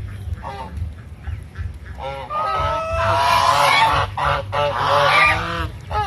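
Domestic geese honking: a couple of short honks, then from about two seconds in a loud run of overlapping honks from several birds.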